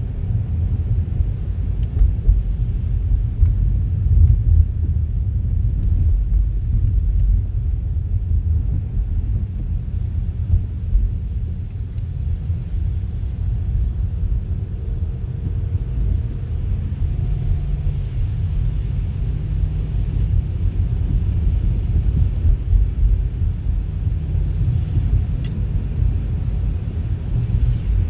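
Car driving along a snowy city street: a steady low rumble of engine and road noise.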